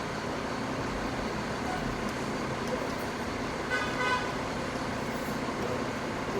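Steady background noise with a brief high toot about four seconds in.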